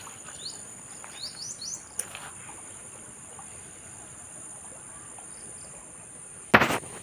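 Insects trilling steadily at a high pitch, with a quick run of four short rising bird chirps about a second in. A sharp knock near the end.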